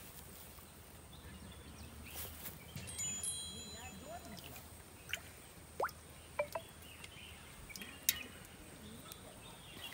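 Faint outdoor background with a few scattered short chirps and clicks, and a brief high ringing about three seconds in.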